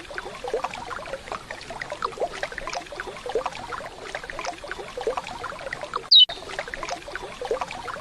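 Waterfall water splashing and trickling steadily, with many small droplet plinks. About six seconds in, one short, loud call note of a curió (lesser seed-finch) cuts in, falling in pitch.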